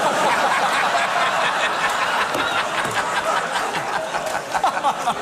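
Studio audience laughing at a joke, a dense burst of crowd laughter that dies down near the end.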